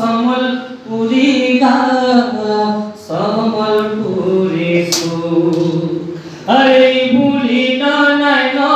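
A man singing a Sambalpuri song in long, held notes, with short breaths between phrases.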